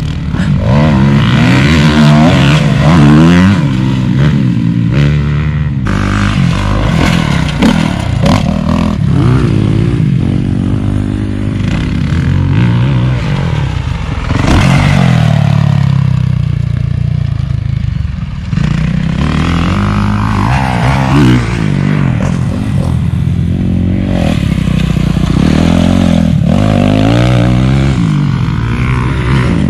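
Motocross dirt bikes revving hard around the track and past close by, the engine pitch rising and falling over and over as the riders work the throttle through the jumps and turns.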